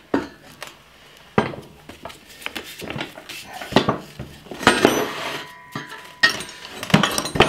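Irregular metal clanks, knocks and scraping as the reel of a John Deere 2500 greens mower's cutting unit is worked out of its frame by hand. A few of the clinks ring briefly.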